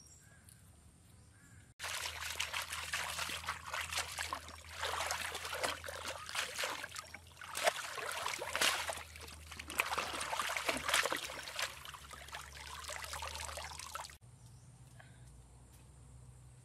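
A rack of raw beef ribs being washed in water, swished and dunked so the water splashes and sloshes continuously; the splashing starts suddenly about two seconds in and stops suddenly about two seconds before the end.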